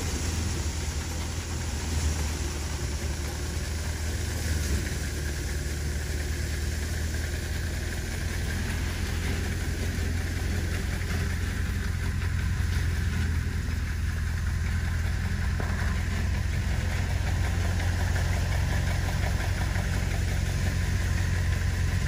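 Belt-driven wheat thresher running steadily: a continuous low hum with a rushing noise over it.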